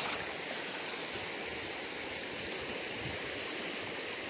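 Shallow river water running in a steady rush, with a brief splash right at the start as a stone is swished through the water to rinse it.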